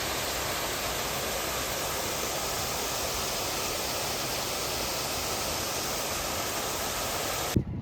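Steady rush of falling water, such as a waterfall, even and unchanging, cut off abruptly near the end.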